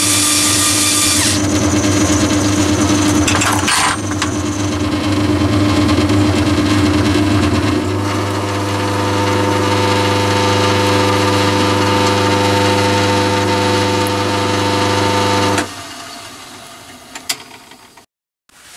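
Myford ML7 lathe running and turning mild steel, its compound slide fed at first by a cordless screwdriver through a 4-to-1 reduction gearbox. The steady machine sound stops suddenly about three quarters of the way through and fades away.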